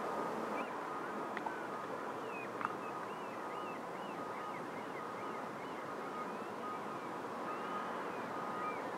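Steady outdoor background noise with small birds chirping many times over it, and a faint steady high-pitched tone that comes and goes.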